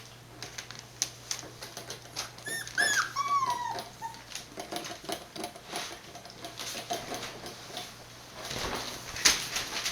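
Young border collie puppy whining: one short whine that falls in pitch about three seconds in, with softer whimpers after it, amid light clicks and scuffling that grows louder near the end.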